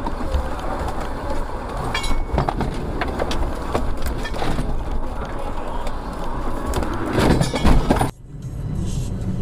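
Car skidding off a snowy road into a snowbank, heard from inside the car: steady road noise with knocks and rattles, building to a loud burst of impact noise about seven to eight seconds in, then cutting off suddenly.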